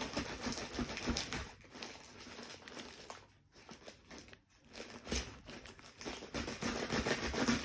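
Plastic courier mailer bag crinkling and rustling as it is pulled and torn open by hand, with a brief lull about halfway through.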